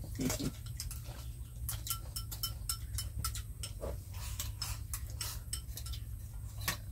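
Chopsticks and spoons tapping and clinking against ceramic rice bowls while eating, a scatter of small irregular clicks, some briefly ringing, over a steady low hum.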